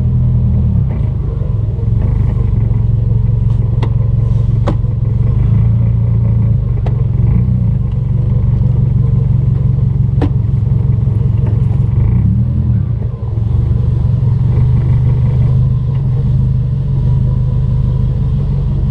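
Compound-turbo Subaru engine running steadily at low revs, heard from inside the cabin, with a deep even rumble and a few faint ticks.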